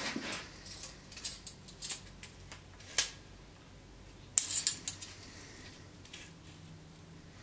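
Steel tape measure being handled and laid along a sword blade: small metallic clicks and scrapes, a sharp click about three seconds in and a quick clatter of clicks about a second later.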